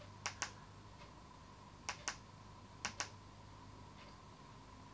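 Three presses on a TV remote control's buttons, each a quick double click, as the settings menus are backed out of.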